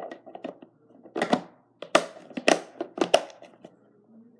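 A run of sharp knocks and clacks from small objects being handled and set down, with four louder ones about half a second apart.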